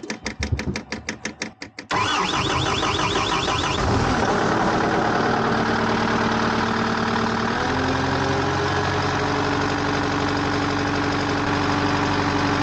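Skid steer engine cranking over on the starter in a quick, even rhythm for about two seconds, then catching and running steadily, with the engine speed shifting a little partway through. The engine is starting on a freshly fitted battery after failing to start.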